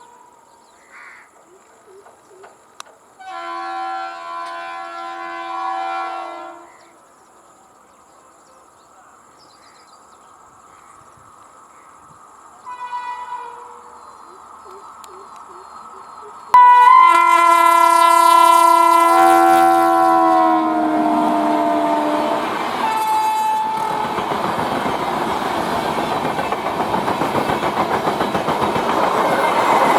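Indian Railways WAP-7 electric locomotive sounding its 'donkey' horn: a blast about three seconds in, then, about 16 seconds in, a loud long blast as it arrives, the pitch dropping as it passes. The express's coaches then rush past, wheels clattering over the rail joints.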